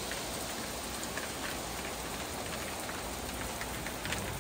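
Steady rain mixed with small hail falling on pavement and metal containers: an even hiss with faint scattered ticks.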